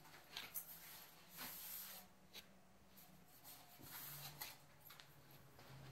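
Near silence, with a few faint ticks and rubs from a metal licence plate being handled.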